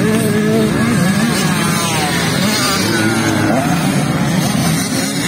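Several motocross bikes' engines running together, their pitch rising and falling as the riders open and close the throttle on the track.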